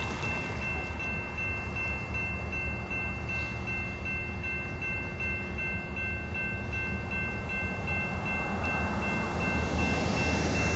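Railroad grade-crossing warning bell ringing in a steady, even rhythm as the crossing signals are active. Under it is the low rumble of an approaching diesel locomotive, which grows louder near the end.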